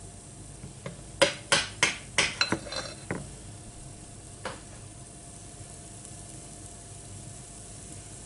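A metal spoon and silicone spatula knocking and scraping against a glass mixing bowl while batter is scooped out: a quick run of sharp clinks for about two seconds, then one more. Under it runs a faint steady sizzle from batter on the hot waffle iron.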